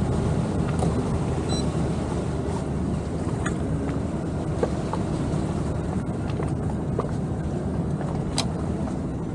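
Towboat's engine running steadily under way while pulling a yacht on a tow line, with wind and water rushing past the hull. A few sharp clicks, one about eight seconds in.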